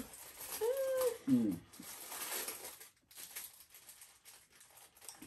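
A short, wordless hummed or groaned vocal sound about a second in, its pitch rising and then falling, followed by faint rustles and quiet while juice is swigged from a plastic bottle.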